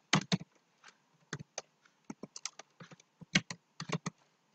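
Typing on a computer keyboard: irregular quick runs of keystrokes with short pauses between them.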